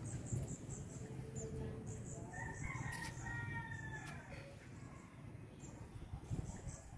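A rooster crowing once, a call of about a second and a half starting between two and three seconds in, heard faintly.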